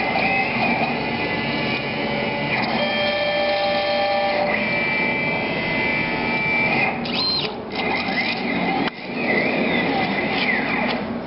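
Belt-driven gantry of a CNC plasma table moving at 300 inches a minute under computer control, its drive motors whining. The pitch holds steady on each straight run and jumps to a new pitch as the axes change speed and direction. Near the end it sweeps up and down through curves, with a brief break about nine seconds in.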